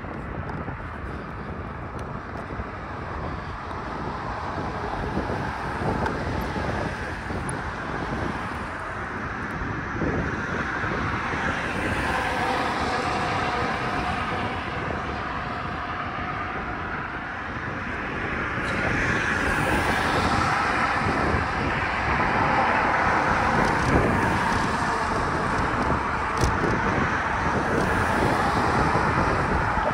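Road traffic noise and wind on the microphone, heard from a moving bicycle. It grows louder about two-thirds of the way through.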